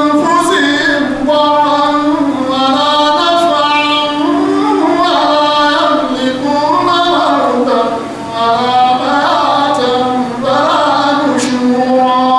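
A reciter's voice chanting the Quran in melodic tajweed style, with long held notes and ornamented turns and brief breaks for breath.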